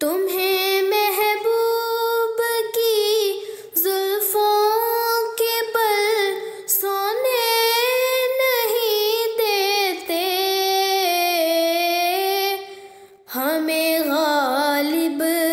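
A woman singing an Urdu nazm solo, holding long wavering notes with ornamented turns. There is a short pause for breath about 13 seconds in.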